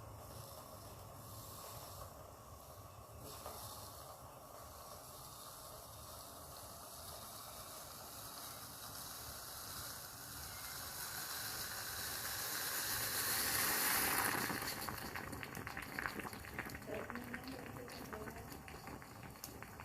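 Moka pot on the heat: a steady hiss that swells to a loud rushing hiss about fourteen seconds in, then breaks into crackling sputters. This is steam forcing the last of the water up through the coffee as the brew finishes.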